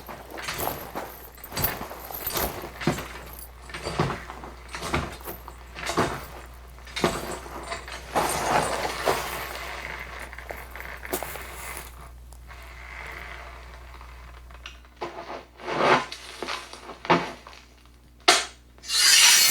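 Foley sound effects: a string of knocks, clatters and rustles over a faint steady hum, turning sparser and louder in the last few seconds.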